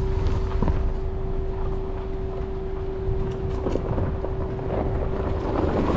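Ford Bronco Sport creeping along a rutted dirt trail: a low rumble with wind buffeting the microphone, a steady hum under it, and scattered clicks and knocks from the rough ground.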